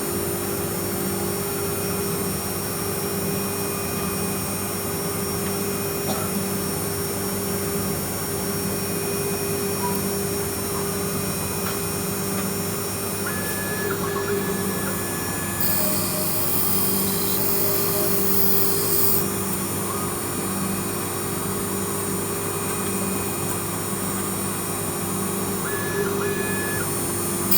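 Small CNC milling machine running with a steady motor hum. A few short high tones come in about halfway through and again near the end, and a stretch of high hiss lasts several seconds in the middle.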